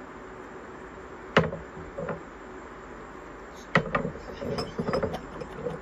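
Glassware knocking and clinking on a tabletop: one sharp clack about a second and a half in, then a quick pair of clacks near four seconds followed by a cluster of smaller knocks and clinks.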